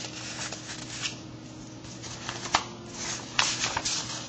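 Paper pages of a picture book rustling as they are handled and turned, with a louder rustle near the end as the page turns over.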